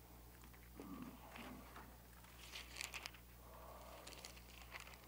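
Faint rustling of thin Bible pages being leafed through, with a few light crinkles, over a low steady hum.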